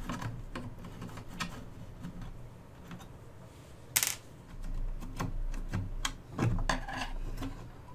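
Screwdriver taking small screws out of a valve radio's metal front panel: scattered faint clicks and metal scrapes, with one sharp click about four seconds in and the panel being handled near the end.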